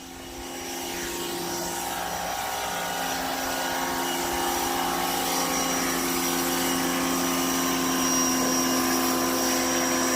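Electric carpet-cleaning machine switching on, its motor rising to speed over about two seconds and then running steadily with a hum and a high whine.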